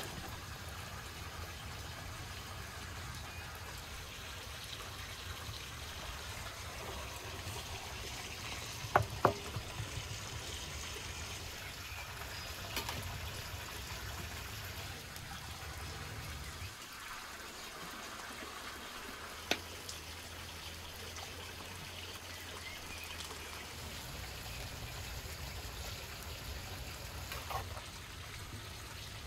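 Steady trickling water in the background, with a few sharp metal clinks of a ladle against a copper serving tray. The loudest are two clinks close together about nine seconds in.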